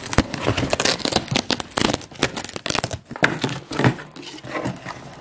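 A taped cardboard shipping box being torn open by hand with some difficulty: cardboard flaps and packing tape ripping and crinkling in a dense, uneven run of rips and crackles.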